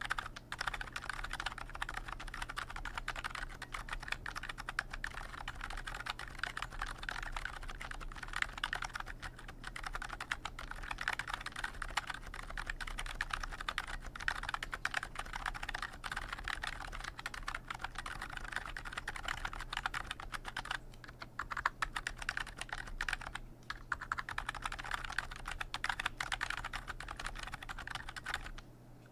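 Continuous fast typing on an electrocapacitive rubber-dome (Topre-style) keyboard with 42 g domes, a steel plate and PBT keycaps, giving a steady stream of muted keystrokes. There are brief pauses a little over two-thirds of the way through. A faint low electrical hum sits underneath.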